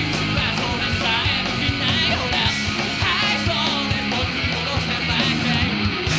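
Rock band playing live at full volume: electric guitar over drums keeping a driving, steady beat.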